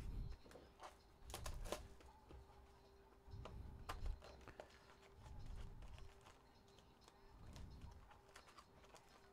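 Faint clicks, taps and dull thumps of hands handling and opening a cardboard trading-card hobby box and pulling out packs.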